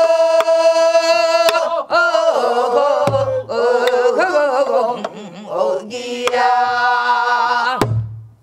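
A woman singing a Namdo folk song in pansori-style voice, holding long notes and bending them in wavering turns, to a buk barrel drum. There is a deep stroke on the drumhead about three seconds in and another as the song ends near the close, with sharper stick clicks between.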